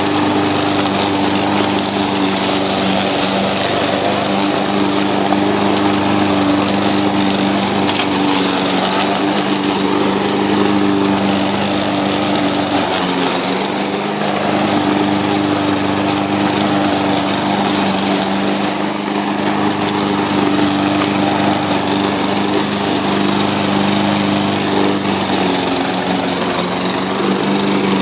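Walk-behind rotary lawn mower's small gasoline engine running steadily while cutting grass, its pitch sagging briefly about halfway through and again a few seconds later.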